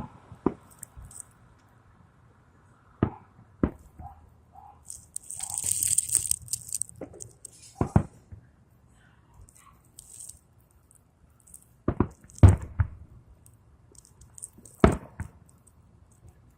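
Aerial fireworks bursting: a string of sharp bangs a few seconds apart, the loudest two near the end, with a hissing crackle around the middle.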